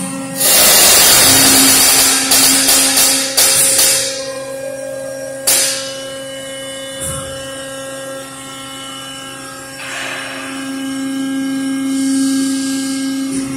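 Adaptive Motion EB150L mandrel-type CNC tube bending machine running with a steady hum. In the first few seconds a loud, choppy hissing rush comes in over the hum, and a single sharp clack sounds about halfway through.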